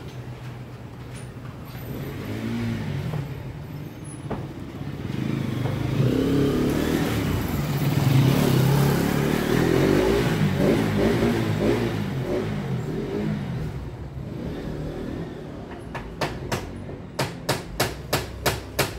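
A motor vehicle's engine running and passing close by on the street, getting louder to a peak and then fading. Near the end comes a quick run of sharp clicks, about three a second.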